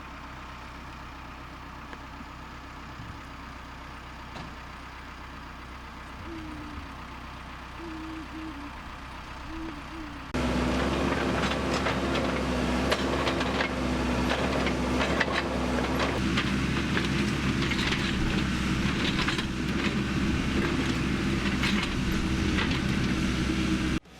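Backhoe engine running steadily. About ten seconds in it turns abruptly louder, with a steady drone and many sharp knocks and clanks over it. It cuts off just before the end.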